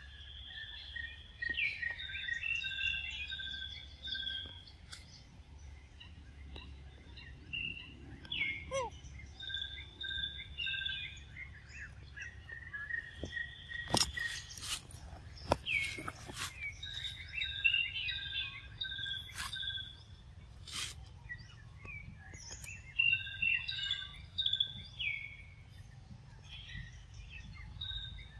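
Birds calling over and over with short, high, repeated chirps and whistles, several voices overlapping. A few sharp clicks stand out around the middle.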